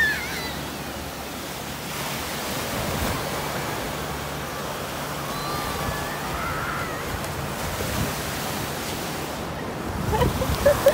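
Ocean surf breaking and washing up a sandy beach, a steady rush of water, with wind on the microphone and a few louder low bumps near the end.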